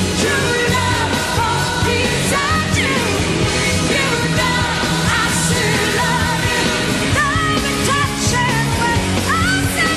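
A woman singing a pop-rock song live with a full band backing, her voice sliding between long held notes.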